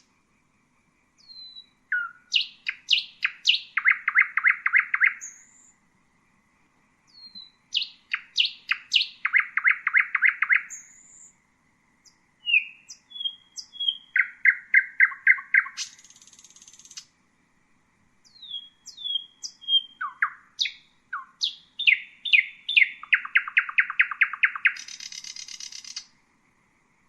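Common nightingale singing in four phrases separated by short pauses. Each phrase mixes sharp whistles and clicks with a fast run of repeated notes, and the second-to-last and last phrases end on a harsh buzzing note.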